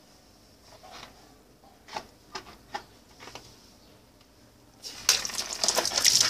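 A water-filled balloon on a tap bursts suddenly about five seconds in, and the tap water then sprays and splashes loudly against the concrete wall. Before the burst there are only a few faint clicks while the balloon fills.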